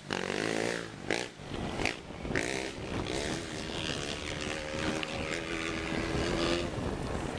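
Suzuki V-Strom 650's V-twin engine running on the move, its pitch falling and rising with the throttle and holding steadier for a couple of seconds past the middle, over a constant rushing noise. A few sharp knocks come in the first few seconds.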